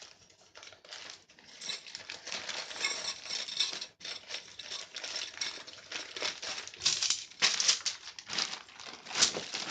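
Crinkling and rustling as the parts of a cheap packed camping tent are handled and unpacked, with many small irregular crackles, loudest in the second half.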